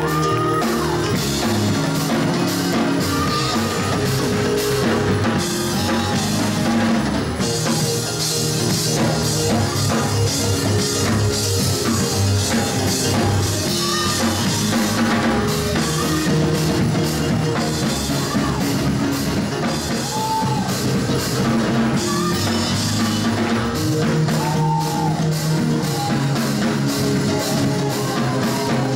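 Live gospel music: a choir singing over a band of drum kit, electric keyboard and guitar, with a steady drum beat throughout.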